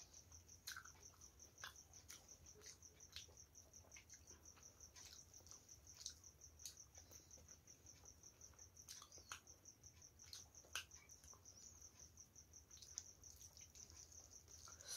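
Faint soft clicks of fingers mixing rice with fish curry on a steel plate, over a cricket's steady high-pitched, rapidly pulsing chirping.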